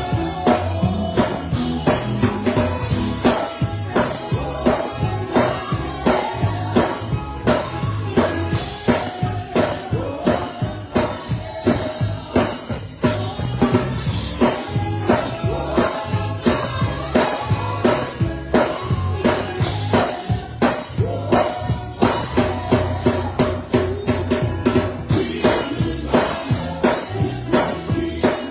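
Live gospel music: a drum kit keeps a steady beat under the band, with singing.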